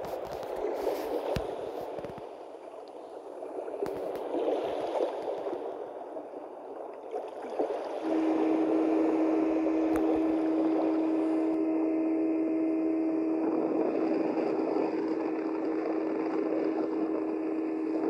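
Sea water splashing and gurgling around a motorboat's hull. From about eight seconds in, a steady engine drone joins the rushing water as the boat runs under way.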